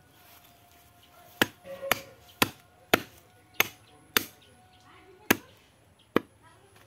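A heavy blade chopping down against a wooden block: about eight sharp chops, mostly half a second apart, with a short pause past the middle.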